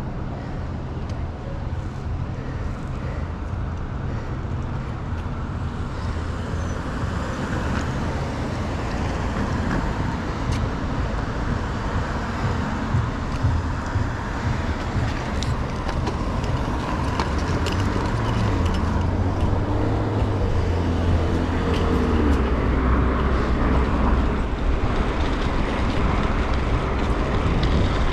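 An engine running with a steady low drone under a rushing noise that grows slowly louder, and a few small clicks.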